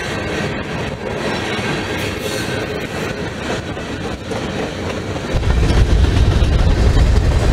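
Freight train of covered hopper cars rolling past close by, a steady rumble of wheels on rails. About five seconds in, a deep low rumble sets in and the sound grows louder.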